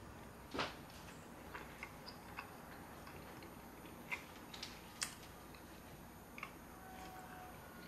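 Knife and fork clicking and scraping against a foil-lined sheet pan while cutting small pieces off grilled burger patties: a scatter of light clicks, the sharpest about half a second in and again around four and five seconds.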